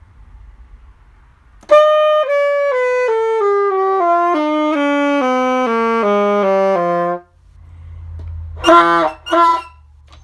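Saxophone playing a descending scale of about a dozen notes, stepping down over more than an octave and stopping about seven seconds in. It is followed by two short, loud blasts. The player says the malfunctioning horn sounds like a goose in its low register.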